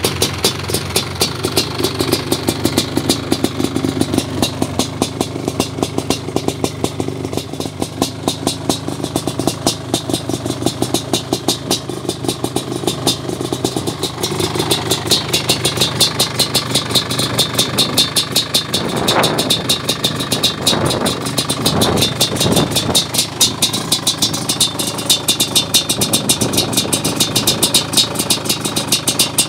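Suzuki LT500R Quadzilla's 500 cc two-stroke single idling through an FMF Fatty expansion chamber and Powercore silencer, its exhaust firing in a rapid, steady beat.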